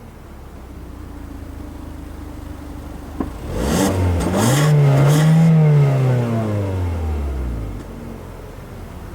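2017 Hyundai Elantra's 2.0-litre, 149 hp petrol engine idling, then revved once: after a click about three seconds in, the pitch climbs, holds for a couple of seconds and falls back to idle.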